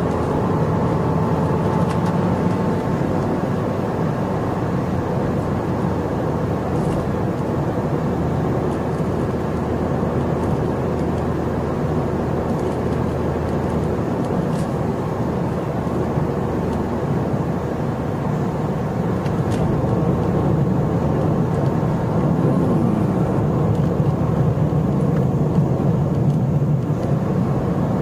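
2012 Ford Fiesta driving with little acceleration, heard from the dashboard inside the cabin: a steady low engine hum under road and tyre noise. About three-quarters of the way through, the pitch briefly rises and falls and the sound gets a little louder.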